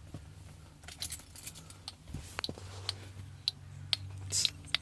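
Old turn signal flasher relay of a 1978 Mercury Zephyr clicking at uneven intervals instead of a steady beat, the sporadic flashing of a failing relay. A steady low hum runs underneath.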